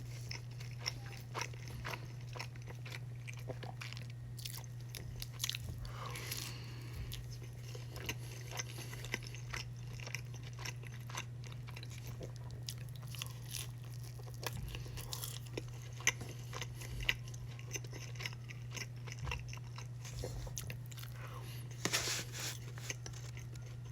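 Close-miked chewing and biting of a barbecue chicken quesadilla, with many small clicks and crunches from the toasted tortilla. Louder bites come about six seconds in and again near the end. A steady low hum runs underneath.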